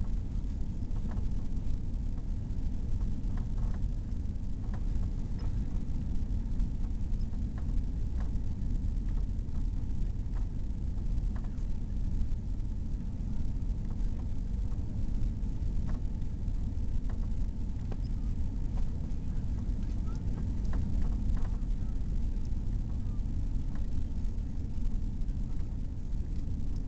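Steady low cabin rumble of an Airbus A340-600 on approach, heard from inside at a window seat: the noise of its four Rolls-Royce Trent 500 engines and the airflow, with a few faint ticks.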